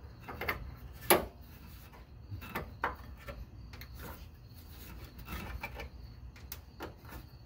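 Fuel line quick-connect fitting being worked onto the inline fuel filter by hand: scattered clicks and knocks of plastic and metal parts, the loudest about a second in, over a faint low hum.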